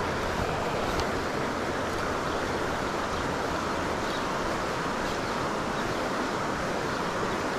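Small stream running high, a steady rush of water over rocks and riffles.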